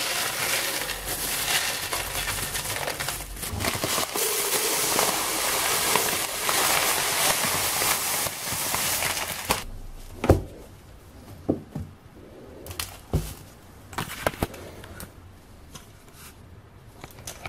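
Dry goods, macaroni among them, poured from plastic bags into plastic storage containers: a dense rattling hiss with bag crinkling for the first nine seconds or so. Then it goes quieter, with a few sharp knocks and clicks of the plastic containers and lids being handled.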